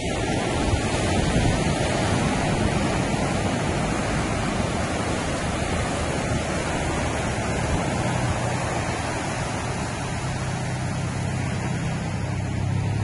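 Steady rushing noise of wind and waves at the sea's edge. Near the end a low engine hum sets in and grows louder.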